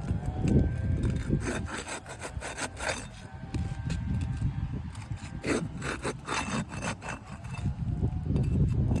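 Rough scraping and rubbing against asphalt roof shingles in irregular strokes, as the tabs are worked and lifted by hand or tool.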